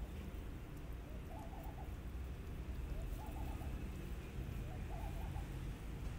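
A dove cooing in the background, three short calls about a second and a half apart, over a steady low rumble.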